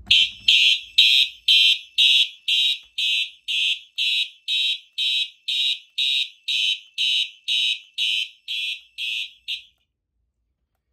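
Simplex fire alarm horn strobes on a Fire-Lite MS-10UD panel sounding in coded pulses, about two a second, in alarm from a pulled manual pull station. They cut off abruptly near the end.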